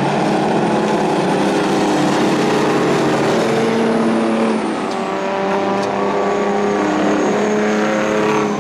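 Engines of several scaled-down semi-truck race cars running together at racing speed, several engine notes at different pitches overlapping and shifting as the trucks pass.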